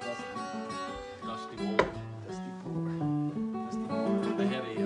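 Solo acoustic guitar playing a run of picked notes and chords over bass notes, with one sharp accented strike about two seconds in.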